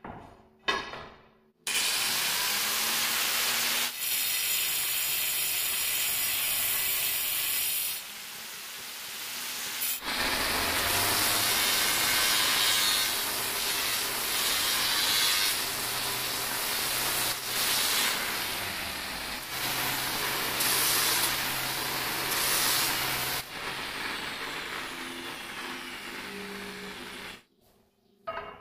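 Angle grinder with an abrasive disc running against the edge of a granite strip, its load and pitch shifting over several passes. It starts about two seconds in and stops shortly before the end.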